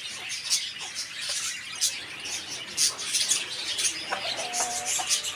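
Many caged small birds chirping, a dense chatter of short, high-pitched calls overlapping throughout.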